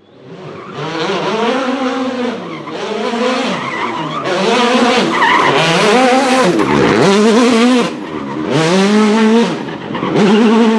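Hyundai i20 WRC rally car's 1.6-litre turbocharged four-cylinder engine revving hard and dropping back again and again, about once a second, with its tyres skidding.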